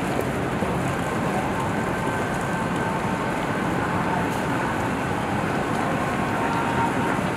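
Busy city street ambience: a steady wash of road traffic and pedestrian crowd noise.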